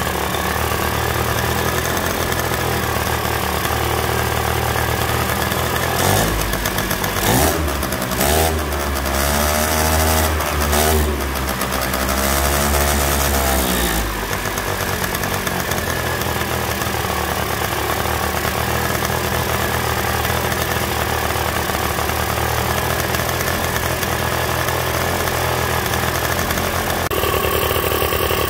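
Old 100cc two-stroke scooter engine running on its first start after its carburetor was cleaned. It idles steadily, its revs rise and fall several times a quarter to halfway in, then it settles back to a steady idle, the idle speed well set.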